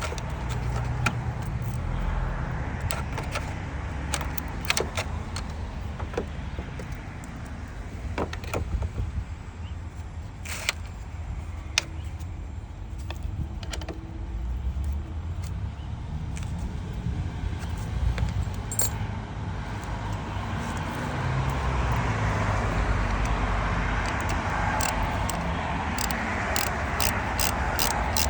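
Scattered sharp metallic clicks and clinks of hand tools and battery-terminal hardware being handled, over a steady low rumble. Near the end the clicks come in a quicker run.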